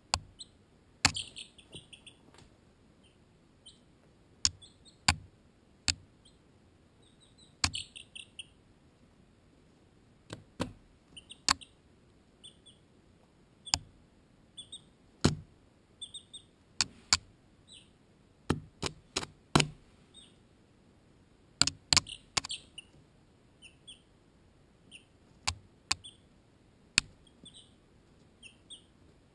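Baby chicks (Barred Rocks and Ameraucanas) pecking at the camera, a string of sharp, irregular taps, often two or three in quick succession. Short, high peeping comes in small groups between the taps.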